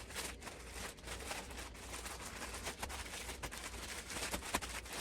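Rustling and crinkling of plastic zip-top freezer bags of marinated chicken being handled, with a few small clicks.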